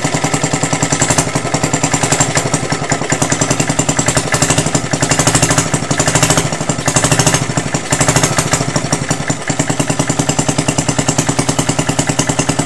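Old Suffolk 75cc lawnmower engine running just after starting, a fast steady beat with a couple of brief dips. It is running with the choke still closed, reluctant to pick up speed.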